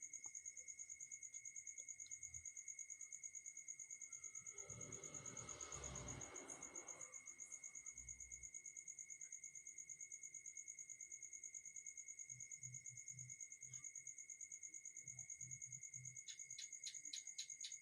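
Faint cricket chirping in a steady, fast-pulsing high trill. About five seconds in there is a brief soft rustle.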